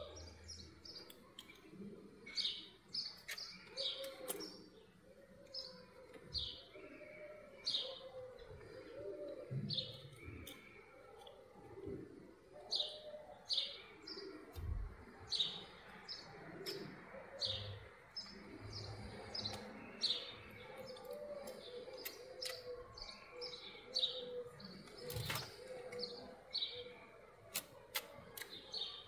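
Small birds chirping: short, high chirps repeating every second or so, over a faint low wavering tone and a few sharp clicks.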